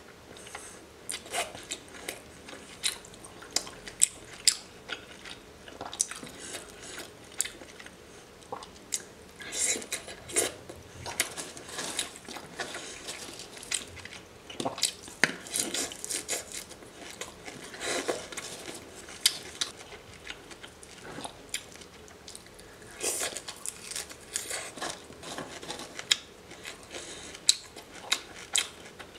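Close-miked crackling and snapping of small whole shrimp being pulled apart and peeled by hand, mixed with wet mouth sounds of chewing.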